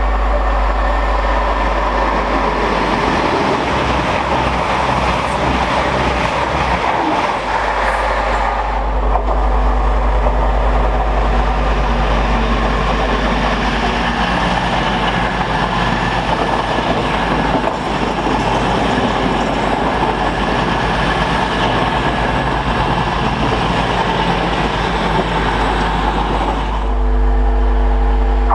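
Multi-coach express passenger train passing through the station at speed: a long, loud rush of wheel and engine noise. Near the end it gives way to the steady engine drone of an approaching Class 66 diesel freight locomotive.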